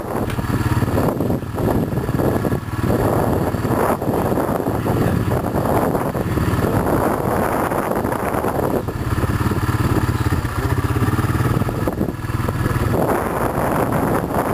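Heavy diesel truck engine running steadily at idle, a deep low rumble.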